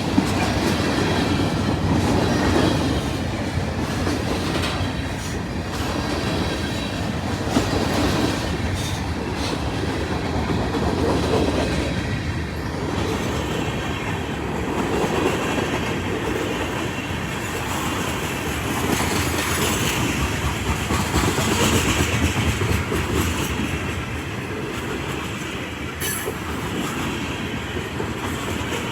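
Freight train cars rolling past in a steady, rumbling clatter, wheels clacking over the rail joints, with a brief high wheel squeal now and then.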